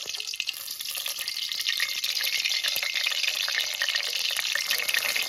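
Eggs frying in hot oil in a pan: a steady sizzle full of small crackles, which grows louder over the first couple of seconds and then holds.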